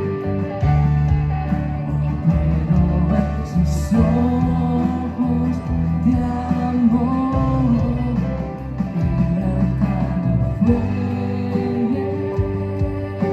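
Live worship band playing a song, with singing over guitars and a bass guitar holding low notes.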